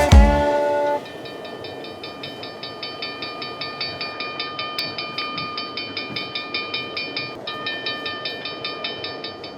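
Train running, its wheels clacking over the rail joints in an even rhythm of about four clacks a second, slowly getting louder. The last chord of a children's song dies away in the first second.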